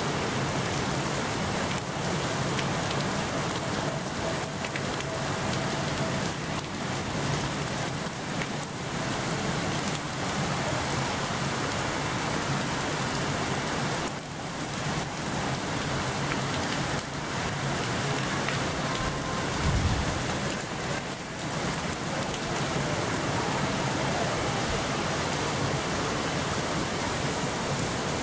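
Water pouring and splashing off a giant overshot steel waterwheel as it turns: a steady, rain-like rush. A single low thump comes past the middle.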